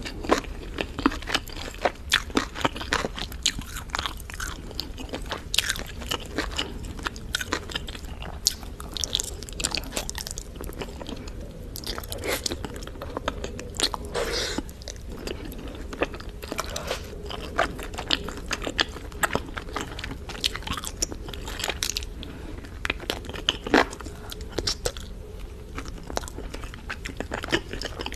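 Close-miked eating: biting and chewing barbecued chicken, with frequent sharp crunches and wet mouth clicks.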